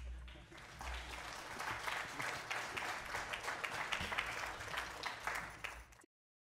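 Concert audience applauding: a dense patter of many hands clapping that fills out about a second in, then cuts off abruptly near the end.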